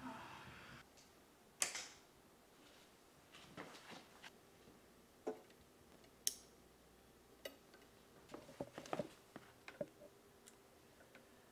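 A dozen or so short, sharp clicks and taps at irregular intervals, two of them louder, over quiet room tone.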